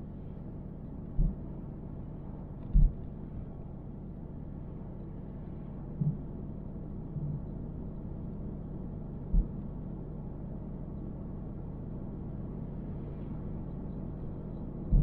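Car driving along a road, heard from inside the cabin: a steady low rumble, broken by five or six short low thumps.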